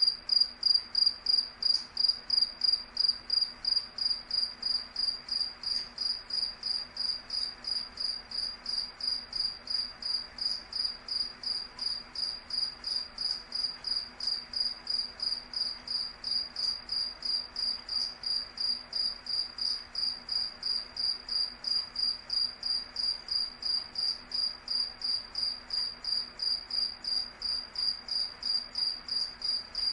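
Cricket chirping in an even, unbroken rhythm, about three high-pitched chirps a second.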